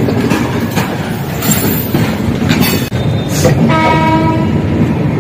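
Passenger train running into a station, heard from an open coach door: a steady rumble with wheels clattering over the rails. About three and a half seconds in, a train horn sounds as a steady tone for over a second.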